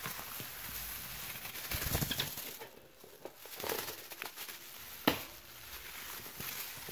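Plastic bag rustling and a wire birdcage rattling as a hand wrapped in the bag reaches in to catch a budgie, with a sharp click about five seconds in.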